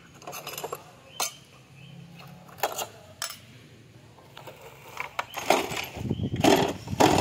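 Shards of broken glass from a wall clock's cover clinking as they are picked out and dropped onto a plastic sheet: a few separate sharp clinks, then louder, busier handling noise near the end.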